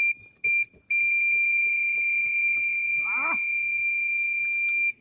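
Electronic carp bite alarm sounding: a few short beeps, then a single high tone held for about four seconds, the sign of a fish taking line in a run.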